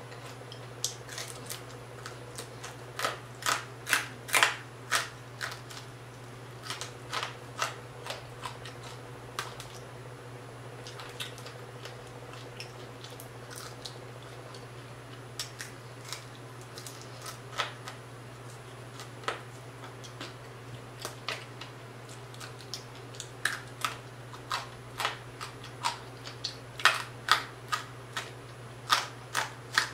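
Crispy fried tilapia crunching as it is bitten and chewed, with sharp, irregular crackles from the fried fins and skin. The crunches come thick about three to five seconds in and again near the end, sparser in between, over a faint steady hum.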